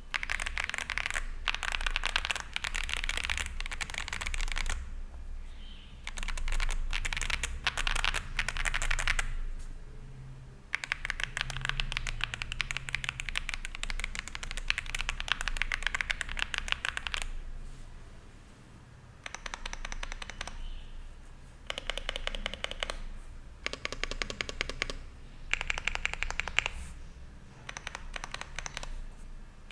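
Typing on a Zoom65 mechanical keyboard with WS Brown switches, an aluminium plate, IXPE foam and PBT keycaps: fast runs of key clacks lasting a few seconds, broken by short pauses, then shorter bursts of keystrokes in the second half.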